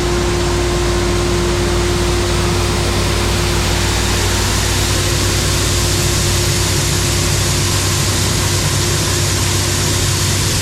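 Case IH 2388 combine running, a loud steady machine noise with a constant hum and a high hiss that holds evenly.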